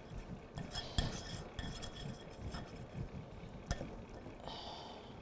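Muffin batter being stirred by hand in a mixing bowl: soft irregular scraping, with sharp clinks of the utensil against the bowl about a second in and again near the end.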